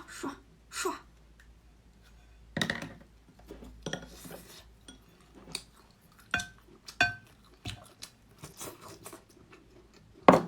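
Dishes and cutlery clinking and knocking in scattered separate strikes, with two short ringing clinks about six and seven seconds in.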